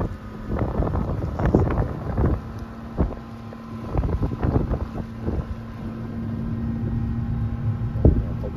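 A car driving with a steady engine and road drone, while irregular gusts of wind buffet the microphone.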